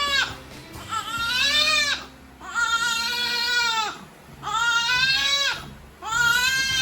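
Baby crying in repeated long wails of about a second each, with short gaps between them.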